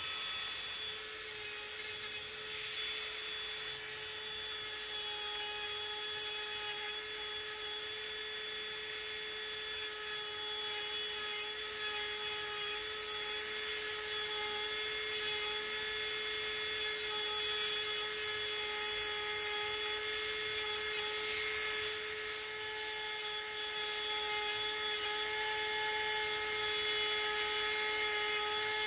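Small electric power tool running at a steady speed with a constant whine, working tulsi wood for necklace beads.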